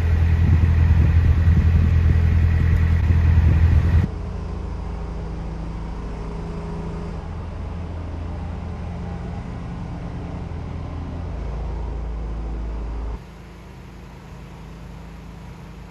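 A narrowboat's engine running steadily while the boat is under way, a low, even drone. Its level drops sharply about four seconds in and again near the end.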